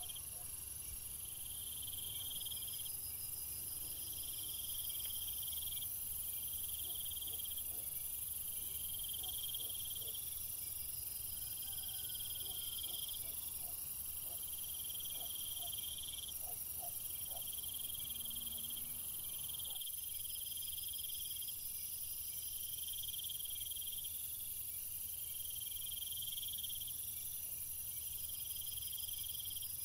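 Insects calling: a high trill that repeats in phrases of about a second and a half with short gaps, over a steady high-pitched hiss.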